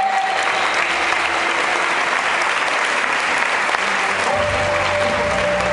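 Audience applauding steadily, with runway music underneath; a low bass line and a held tone in the music come up about four seconds in.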